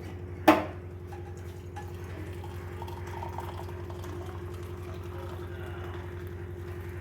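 Freshly boiled kashaya (herbal decoction) being poured out into a cup, a faint trickle of liquid over a steady low hum. One sharp clink about half a second in.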